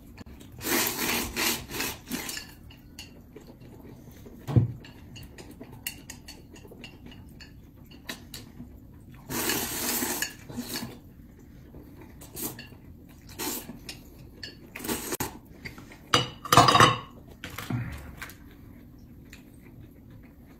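A man slurping noodles from a bowl held to his mouth: four slurps of one to two seconds each, with chopsticks clicking and scraping against the bowl in between.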